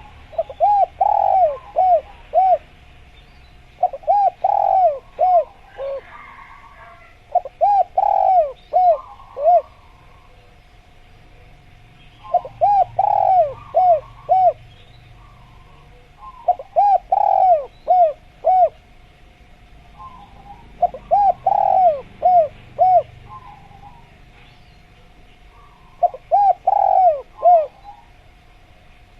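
Spotted dove (tekukur) cooing: a phrase of five or six quick, arched coos, repeated about every four seconds. Faint chirps of small birds come between the phrases.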